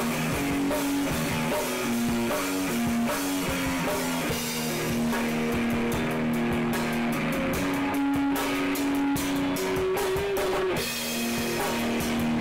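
Live instrumental black metal: a guitar holding long riff notes that change pitch every second or so, over a drum kit with cymbals hit throughout.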